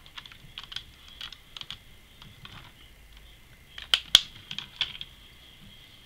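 Light clicks and taps of fingers handling a small diecast model police car, scattered through the first half, with a louder cluster of sharp clicks about four seconds in.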